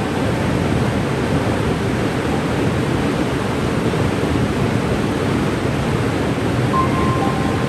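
Steady, loud rush of a waterfall, water pouring and churning without a break.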